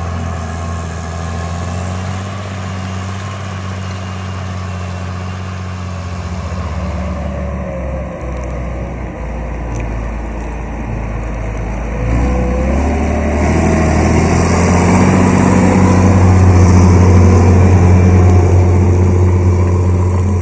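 Large Rába tractor's John Deere diesel engine running steadily under load while pulling a tillage cultivator through the soil. It grows louder about halfway through, with a wavering whine over the engine note.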